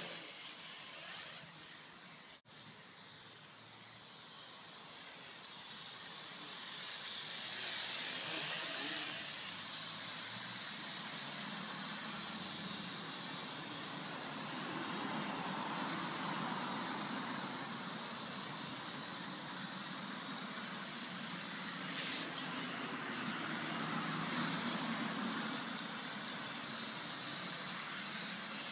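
WLtoys V929 mini quadcopter's small electric motors and four propellers whirring in flight. The whir grows louder about seven seconds in and then holds steady.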